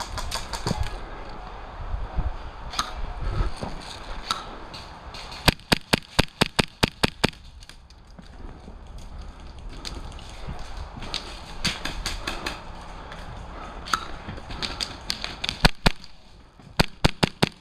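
Airsoft pistol firing in quick strings of sharp cracks: about a dozen rapid shots in under two seconds, then several shorter bursts of shots later on.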